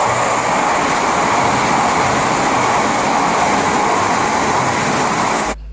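Steady rushing noise of a train running, starting abruptly and cutting off suddenly near the end.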